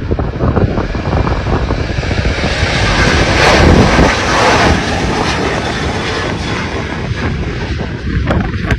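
Boeing 737's twin jet engines roaring at full power on departure, swelling to their loudest about three to four seconds in as the airliner passes, then easing off a little.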